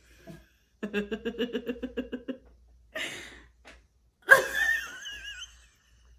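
A woman laughing: a quick run of short "ha" pulses about a second in, a breathy burst, then a high-pitched wavering squeal-laugh about four seconds in.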